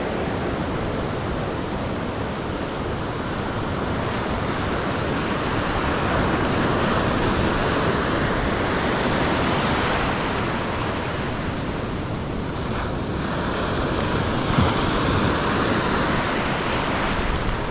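Ocean surf washing in over shallow, foamy water on a beach, a steady rushing that swells and eases as each wave comes up the shore.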